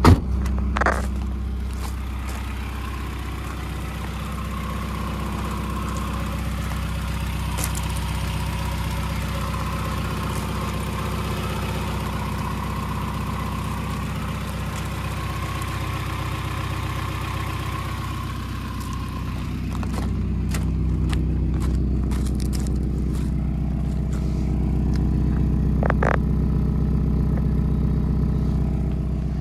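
1990 Mazda Miata's 1.6-litre four-cylinder engine idling steadily just after a cold start. A sharp thump at the very start comes from the car door being shut. From about 20 s in the idle is louder and deeper, heard at the tailpipe.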